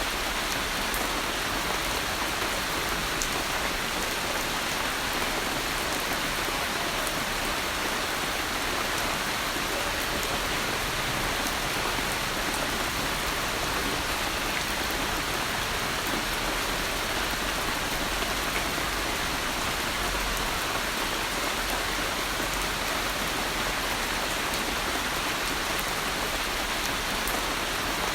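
Steady rain falling, an even hiss with faint scattered drop ticks, unchanging in level.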